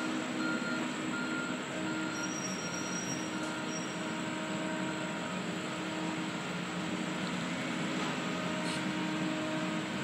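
Diesel engine of a tracked feller buncher running steadily, a constant drone with a few faint steady whines above it.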